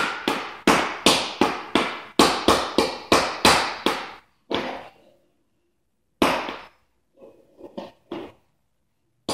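A run of sharp knocks, about two or three a second for roughly four seconds, each dying away quickly; then, after a pause, a few scattered fainter knocks near the end.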